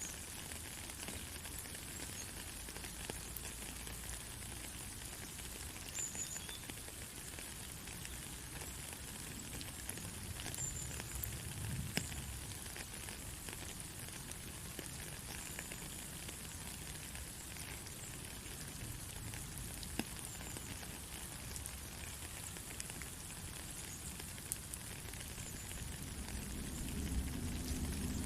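Steady rain: an even hiss with scattered ticks of single drops, and a low rumble rising near the end.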